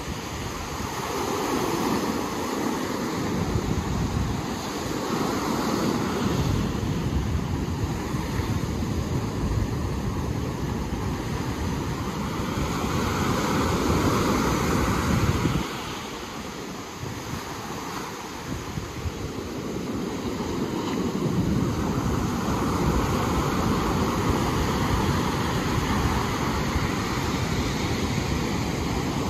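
Ocean surf breaking on the shore, a steady wash that surges and eases in slow swells, with wind buffeting the microphone.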